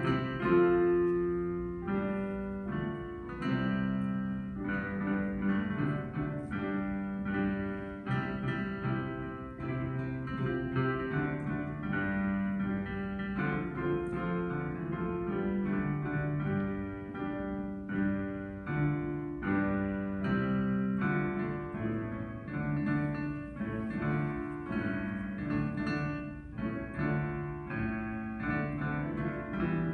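Instrumental keyboard music playing continuously, a steady run of many short notes.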